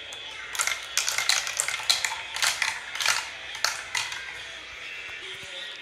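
Marbles clattering down a marble run track: a quick, irregular run of clicks and clacks that thins out about four seconds in.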